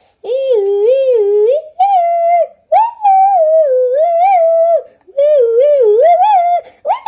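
A child's voice humming a wavering, wordless tune in several short phrases, loud and close.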